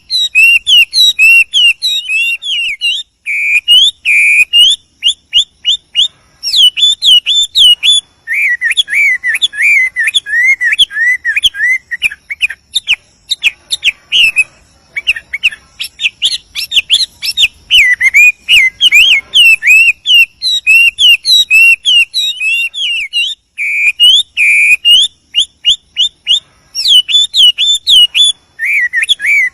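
Chinese hwamei (wambi) singing a long, varied song of loud clear whistles, slurred notes and fast repeated phrases, with only brief pauses between runs.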